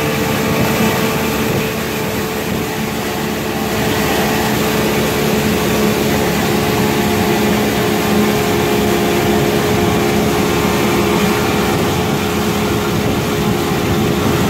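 Outboard motor running steadily at speed, a constant engine drone, over the rush of wind and churning wake water as the boat planes across the lake.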